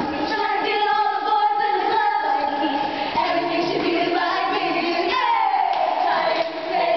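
Pop song with female vocals, the voice sliding down in pitch about five seconds in.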